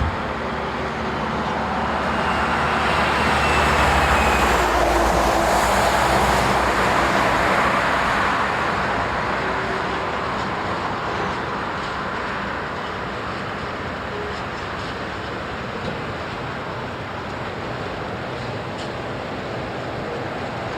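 A heavy vehicle passes close by, growing louder to a peak about four to six seconds in and then fading into a steady rumble of traffic.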